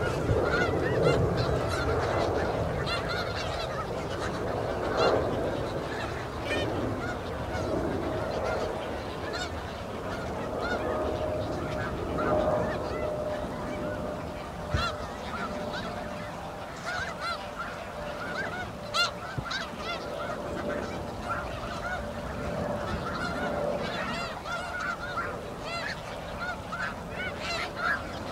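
A large flock of snow geese calling without pause, many short honks overlapping into a continuous clamour.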